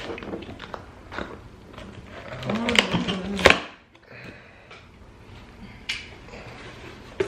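Folding knife slitting the packing tape on a cardboard shipping box: scattered scrapes and clicks of blade, tape and cardboard, with a sharp snap about three and a half seconds in, then a few fainter clicks.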